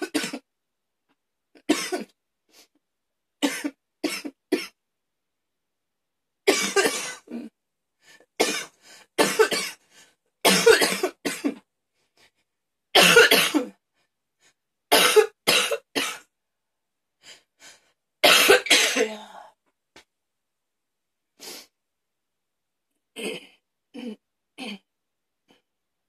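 A woman coughing hard in repeated fits: many harsh coughs in clusters, heaviest through the middle, tailing off into a few weaker coughs near the end.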